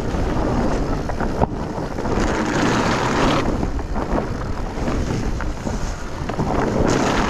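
Wind buffeting the microphone of a camera riding on a fat bike, over a steady low rumble of fat tyres rolling on frozen leaves and thin snow, with occasional small clicks and knocks from the trail.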